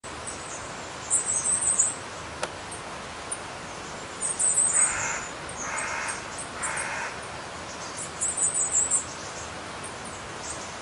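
Birds calling over the steady rush of a waterfall: three bursts of very high, rapid chirping, and around the middle three lower calls about a second apart.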